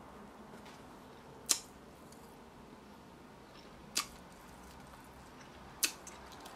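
A person chewing a mouthful of burger with the mouth mostly closed, with three short, sharp smacks of the lips and tongue about two seconds apart.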